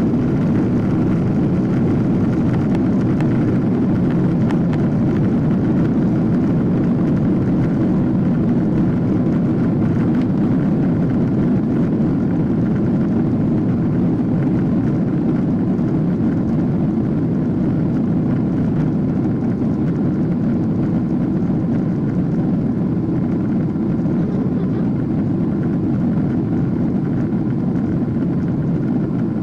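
Steady low rumble inside the cabin of a Boeing 777-300ER taxiing, its GE90 engines at low taxi thrust under a constant rush of air. There is no spool-up: the noise holds level throughout.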